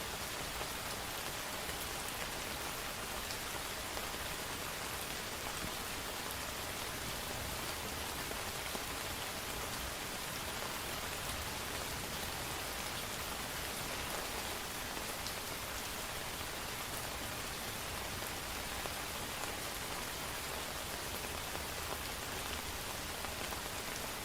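Steady rain falling and pattering on hard surfaces, an even hiss with scattered drop ticks.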